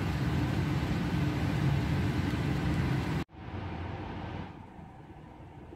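Steady low mechanical hum of lab ventilation machinery, cut off abruptly a little over three seconds in. A quieter steady blower hiss of a laminar-flow cabinet follows and fades lower near the end.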